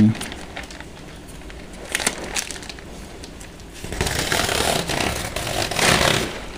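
The stitched thread of a white woven plastic sack being pulled free along its seam: a few light clicks, then a rasping, rustling stretch about four seconds in as the seam unravels and the sack's plastic rustles.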